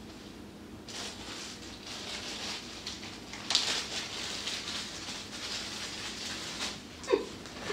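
Rustling and handling noise, with a sharp click about three and a half seconds in.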